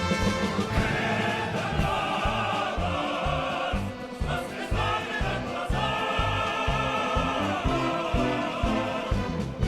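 Choral music: a choir singing long held notes over an orchestral backing, with irregular low thumps underneath.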